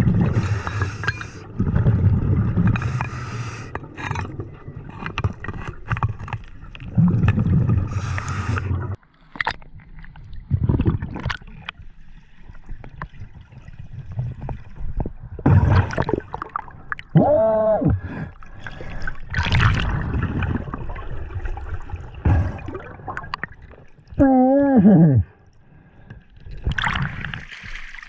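Underwater scuba breathing: hissing breaths through a regulator and gurgling bursts of exhaled bubbles, coming every few seconds. Twice there is a short wavering pitched tone, about two-thirds of the way through and again near the end.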